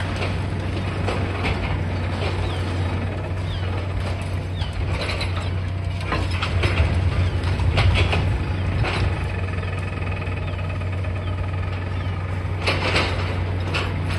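High-reach demolition excavator's diesel engine running steadily while its jaws crunch and tear at the concrete and steel of the building's top floor. Bursts of crunching and scraping come about halfway through and again near the end.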